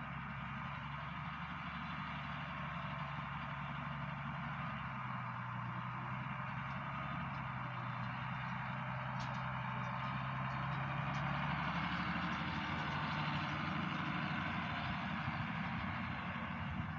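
Farm tractor engine running steadily under load, a constant hum over mechanical noise. The note shifts slightly about two-thirds of the way through.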